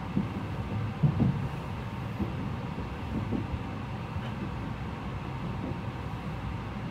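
Interior running noise of an E653 series electric express train: a steady low rumble of wheels on rail, with a few heavier low knocks around a second in.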